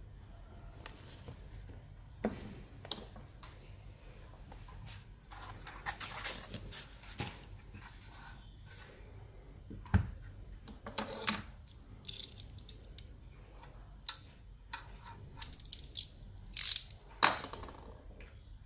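A car radio head unit's sheet-metal casing and bracket being handled on a desk, with scattered clicks, scrapes and clatters. There is a sharp knock about ten seconds in and a cluster of knocks near the end, over a steady low hum.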